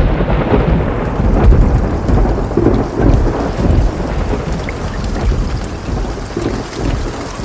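Thunder rumbling over steady rain, rolling in low swells that slowly die down.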